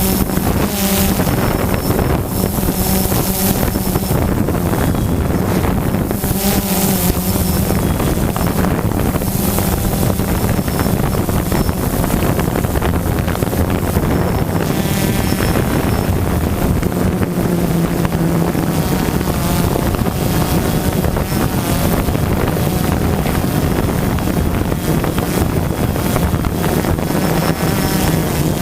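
DJI Phantom 2 quadcopter's motors and propellers buzzing steadily in flight, the pitch of the hum drifting a little up and down as the throttle changes. Heavy wind noise on the microphone runs over it.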